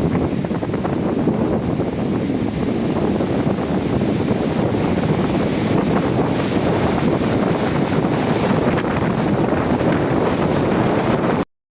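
Strong wind buffeting the microphone as a steady, deep rumble. It cuts off suddenly near the end.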